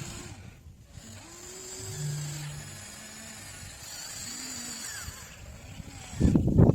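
Small electric motors of a radio-controlled excavator whining in short spells, rising and falling in pitch as the machine moves. About six seconds in, a loud burst of crunching and scraping starts as the bucket digs into hard soil.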